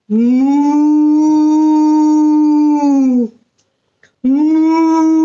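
A cow mooing twice: two long, drawn-out moos, each sliding up at the start, holding a steady pitch, and falling off at the end; the second begins about four seconds in.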